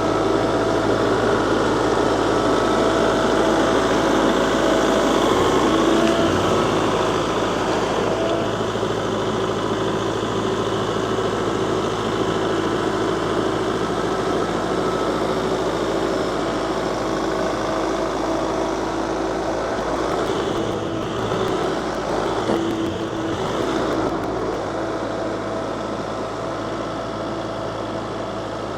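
Kubota compact tractor's diesel engine running steadily under light work with a constant whine. A few irregular knocks and rattles come about two-thirds of the way through.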